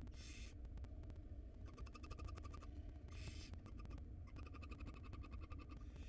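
Barn owls calling in a nest box during a feeding: short hissing, snore-like calls about every three seconds, with rapid chittering ticks between them, over a faint steady low hum.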